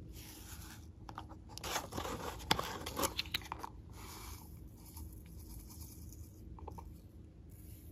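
Plastic sequins crackling and rattling as they are poured out of a plastic jar into a palm: a dense run of small clicks lasting about two seconds, loudest around the middle. Fainter handling noise follows.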